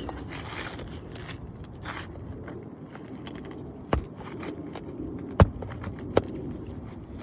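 Scraping and rustling on asphalt roof shingles, with three sharp tool knocks: one about four seconds in, then two more close together near the end.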